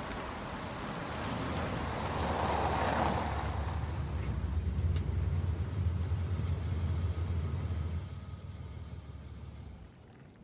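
A car driving, its engine running low and steady with a swell of road noise about two to three seconds in; the sound eases off about eight seconds in and drops away near the end as the car comes to a stop.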